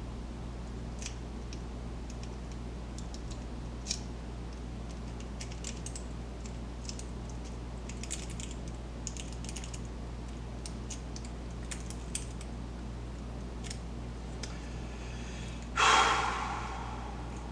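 Lock picks working inside a pin-tumbler lock: faint, irregular metallic clicks and ticks as the pins are picked and raked. About a second and a half before the end comes one short, much louder burst that fades over about a second.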